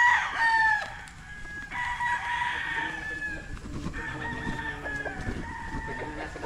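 Gamefowl roosters crowing, several long crows following and overlapping one another.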